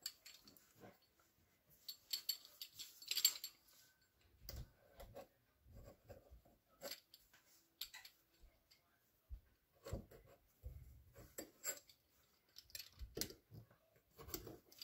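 Faint, intermittent scraping and clicking of a pizza cutter's wheel rolling through dough against a wooden board, with soft knocks as the dough squares are pressed and moved.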